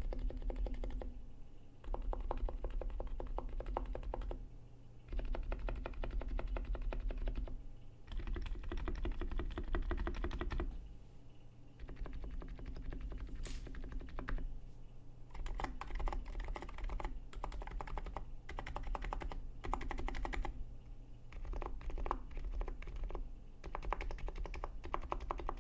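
NiZ X87 electro-capacitive keyboard with oil-lubed stem sliders and KAT Alpha keycaps being typed on: quick runs of keystrokes a few seconds long, broken by short pauses.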